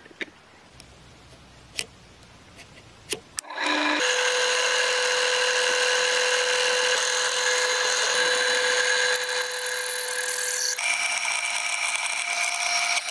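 A few light clicks as a brass block is set into a small drill-press vise, then a drill press running with a steady whine as a twist bit drills into the brass block. Near the end the pitch of the whine shifts.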